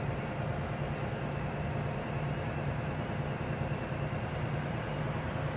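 Steady cabin drone of a coach bus driving along a road, heard from a passenger seat: an even rumble with a constant low hum and a fainter steady higher tone.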